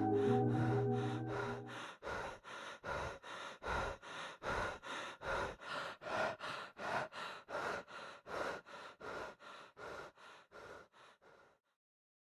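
Sustained music notes die away in the first two seconds. Then comes a runner's rhythmic panting, about two and a half breaths a second, fading out.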